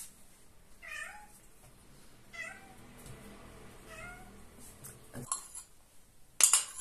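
A house cat meowing three times, short calls about a second and a half apart. Near the end a metal spoon clinks sharply against a ceramic bowl, the loudest sound here.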